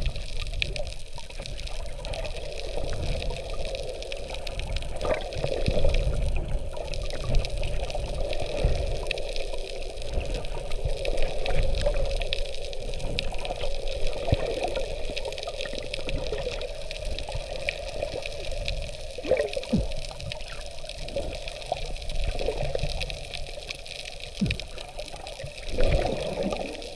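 Muffled underwater water noise recorded just below the sea surface: steady sloshing and bubbling with small swells in level.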